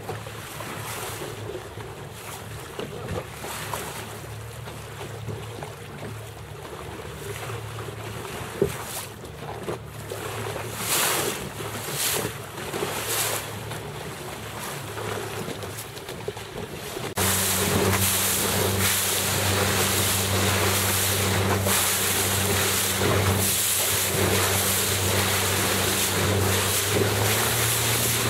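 Wind on the microphone and water splashing around a boat on open water, with a low steady motor hum. About two-thirds of the way through, the sound cuts suddenly to a louder, steadier hum.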